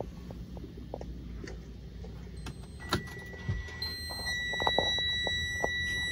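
Freightliner semi truck's dashboard warning buzzer sounding a steady high electronic tone. It starts about three seconds in, a second, higher tone joins a second later, and it keeps going while the cluster's warning lights come on. A steady low rumble and a few handling clicks sit underneath.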